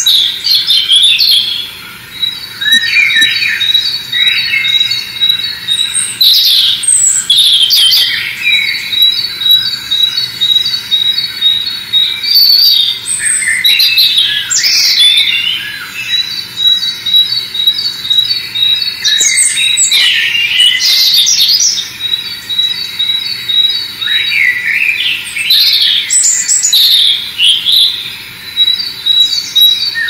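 Small songbirds singing and calling: long runs of quick, evenly repeated high notes, broken every few seconds by bursts of twittering song.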